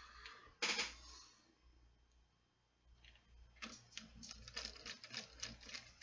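Light clicks and taps of a precision screwdriver and small plastic parts on a Kato No. 6 turnout's plastic base. There is one sharper knock less than a second in, then a run of quick, irregular clicks over the last two and a half seconds as a tiny screw is driven in.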